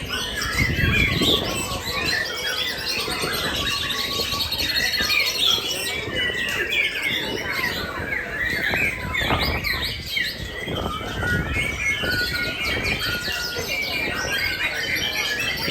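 Many caged songbirds singing and chirping at once in a dense, overlapping chorus of trills and calls.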